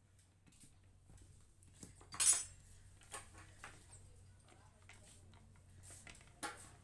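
Metal clinks and taps from gearbox gears and shafts being handled in an open Hero motorcycle crankcase: one loud clink about two seconds in, then a few smaller sharp ones.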